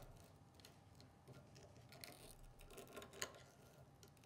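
Faint, scattered light clicks and scrapes of filter screens being pulled out of a level switch's metal filter body by a gloved hand, the sharpest click a little over three seconds in.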